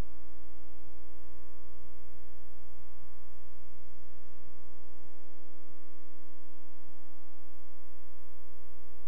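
Steady electrical mains hum: a low, unchanging buzz with many evenly spaced overtones, and no other sound over it.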